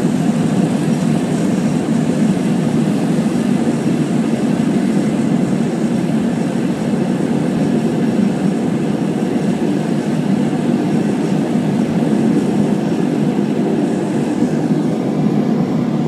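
Cabin noise of a small high-wing propeller plane rolling out on the runway just after landing: steady, loud engine and propeller noise.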